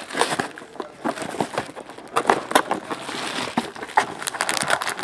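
Plastic shrink-wrap crinkling and a cardboard trading-card box being opened and handled, with foil card packs rustling: an irregular run of crackles and light taps.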